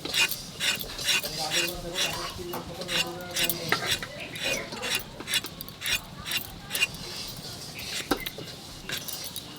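Vegetables being cut by hand with a blade: a run of irregular sharp clicks and chops of the edge against the board, with pieces dropping and knocking together.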